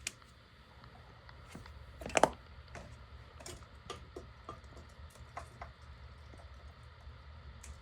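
Yamaha Raptor 700 ATV's single-cylinder engine running with a steady low hum, with irregular light ticks and clicks over it and a louder brief rattle about two seconds in: the weird noise whose cause the owner is asking about.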